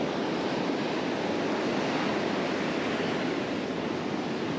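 Ocean surf breaking and washing up a sandy beach, a steady rushing wash of water.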